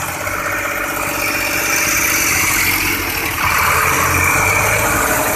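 Diesel tractor engines running steadily while pulling a mud-stuck tractor free on a tow rope, growing louder about three and a half seconds in.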